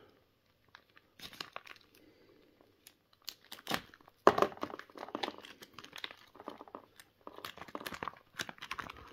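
Clear plastic packaging crinkling and rustling as it is handled and pulled out of a cardboard shipping box, in irregular crackles. They are sparse at first, then a sharp one comes about four seconds in and the crackling gets busier.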